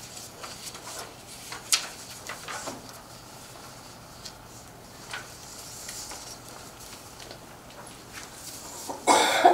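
Meeting-room quiet with a faint steady hum, broken by scattered small clicks, taps and rustles of handling. A louder rustling burst comes about nine seconds in.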